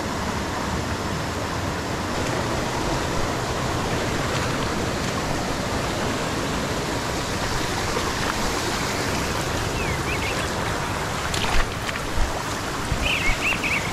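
Steady rush of fast-flowing river water, with a couple of sharp knocks near the end.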